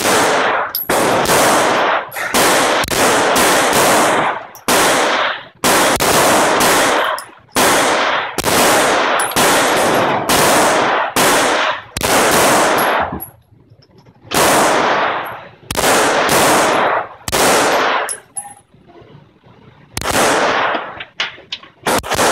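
Glock 17 9 mm pistol being fired in a steady string of shots, roughly one or two a second with a couple of short pauses, each shot ringing out in a long echo off the walls of an indoor range.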